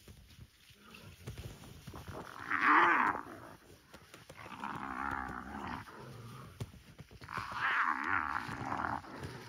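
Three loud, drawn-out animal calls, each about a second or more long, coming about two and a half, five and eight seconds in, with the first the loudest. They come from the wild dogs and hyena squabbling over a kill.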